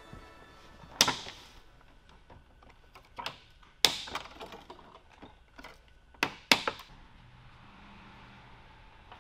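Zip-tie tails being snipped off with hand snips: a few separate sharp clicks, about one and three to four seconds in, then a quick cluster of three at six to seven seconds.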